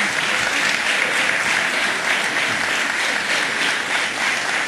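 Legislators applauding: dense, steady clapping from many hands.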